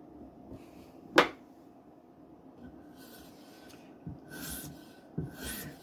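Knife edge being stroked across a 12-inch radius polymer strop loaded with 40 micron diamond, a rasping scrape about once a second from about three seconds in, while the bevel is being reset. A single sharp knock about a second in.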